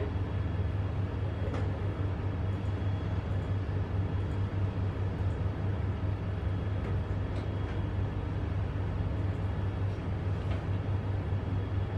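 Steady low room hum with an even hiss above it, unchanging throughout, and no one speaking.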